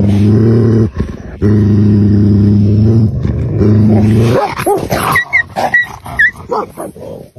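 Tibetan mastiff and wolves fighting over meat: deep, steady growling held in three long stretches. About four seconds in, it breaks into snarling with several short, high yelps.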